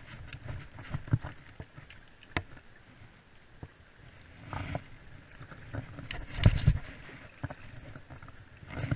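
Scattered knocks, clicks and water sloshing from a small paddle boat being worked along a river bank by rope and paddle, with a louder burst of low thuds and scraping about six and a half seconds in.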